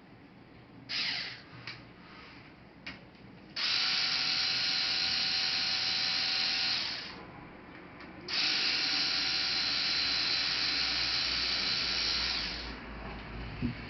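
Small electric screwdriver running in two spells of about three to four seconds each, a steady motor whine, after a few light clicks.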